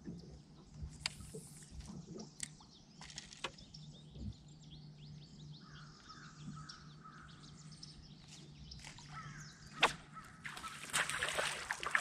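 Quiet backwater ambience with a steady low hum from the boat's bow-mounted electric trolling motor, a few light tackle clicks, and a bird calling about four times in a row midway. Near the end a hooked bass splashes and thrashes at the surface.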